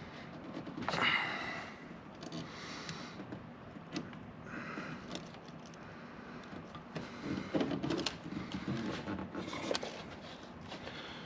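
A hand fumbling in the cramped space behind a car's headlight housing: irregular light plastic clicks, taps and rustling as the bulb's retaining clip is worked at, with a short hiss about a second in.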